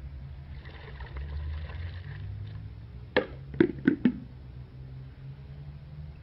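Plastic bucket of ice water being grabbed and lifted: four quick, sharp knocks and clatters within about a second, over a steady low hum.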